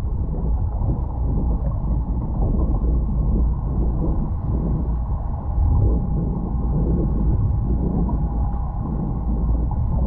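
Muffled low rush and rumble of water streaming past a GoPro in its waterproof housing as it is towed underwater, with a faint steady tone underneath.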